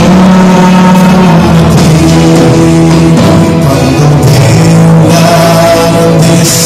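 Loud live worship music from a church band, with sustained keyboard chords that change every second or two.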